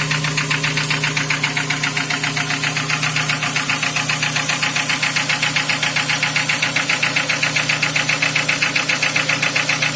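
Nissan QG18DE 1.8-litre four-cylinder petrol engine idling just after a cold start, with a fast, even knocking tick over a steady hum: the engine knock the owner is chasing, which he places around the fourth cylinder.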